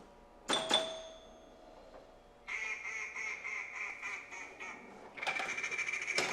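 Phone ringing: two bell-like dings, then a rapid nasal quacking tone in two long stretches.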